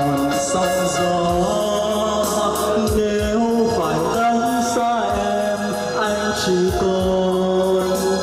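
A man singing into a handheld microphone, amplified through a sound system over backing music with a steady beat. He holds long notes that bend in pitch.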